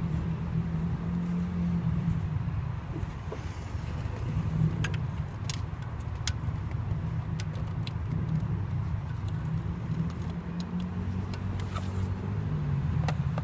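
Scattered small clicks and scrapes as a hand works a crankshaft position sensor back into place deep in a car's engine bay by feel, over a steady low hum.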